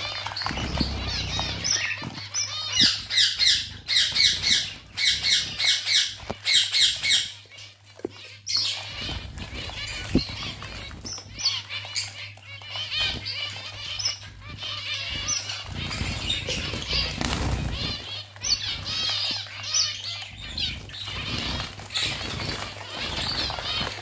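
A flock of caged zebra finches calling: many short, nasal, pitched calls overlapping, with a loud rapid run of repeated calls a few seconds in. Wings flutter as birds flit about the cage.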